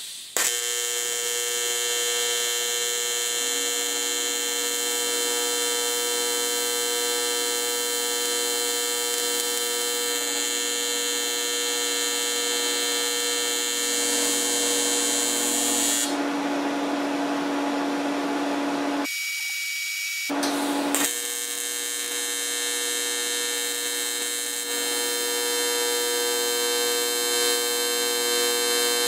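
Miller Dynasty TIG welding arc buzzing steadily under foot-pedal control as a beginner runs a practice weld. It is broken off about two-thirds of the way through, flickers back for a moment, then is struck again and runs on.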